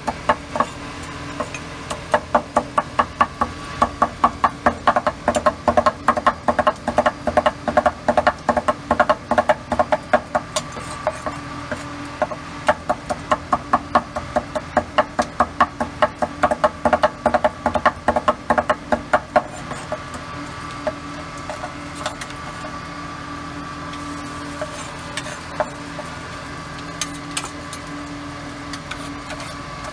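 Fast, even knocking strikes with a slight ring, about five a second, that stop about twenty seconds in; a steady hum carries on underneath.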